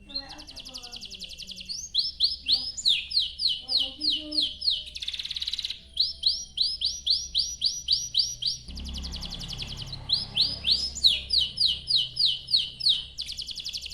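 Domestic canary singing a long, continuous song. Fast rattling trills alternate with runs of quick sweeping notes, about three or four a second, and a short buzzy trill comes before a brief pause about halfway through.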